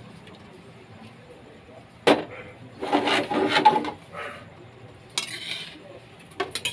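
Metal spatula scraping and knocking against an aluminium wok as stir-fried vegetables are stirred and scooped out. There is a sharp knock about two seconds in, a busy run of scraping and clatter just after, and a few lighter clinks near the end.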